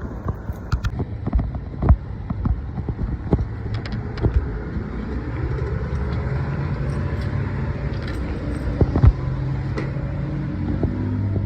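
Car engine running, a steady low hum that shifts up and down in pitch, with many scattered light clicks and knocks close by.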